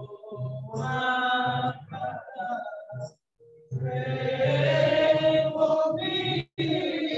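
Voices singing a church song, with a long, slightly rising held note about four seconds in. The sound cuts out abruptly twice.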